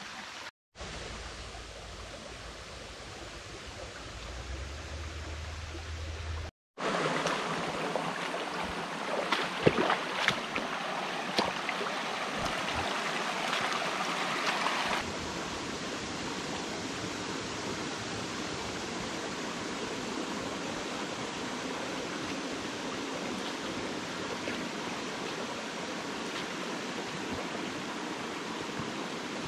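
Shallow rocky creek running over stones and a small cascade: a steady rush of water. The sound jumps at two cuts, about one and seven seconds in; the louder stretch after the second cut carries a few sharp knocks, and about halfway through it settles to a softer steady flow.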